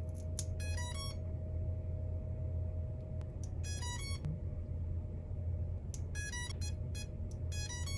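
Brushless drone-motor ESCs sounding short rising power-up beep sequences through their motors as the battery is connected, repeated four times, over a faint steady hum and a few small clicks. The speaker soon finds that the flight controller was left unpowered.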